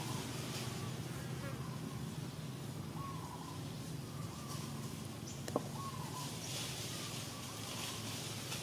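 Outdoor ambience: a steady low hum under a faint insect buzz, with a few short chirping calls and a single sharp click about five and a half seconds in.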